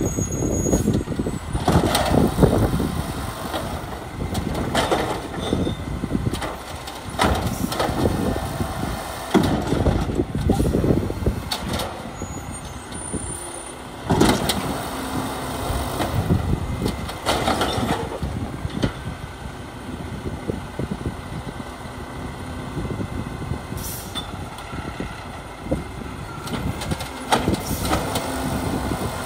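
Peterbilt 520 garbage truck with an Amrep HX-450 automated side-loader body, its engine running as it works the curb, with sharp knocks and clanks every few seconds.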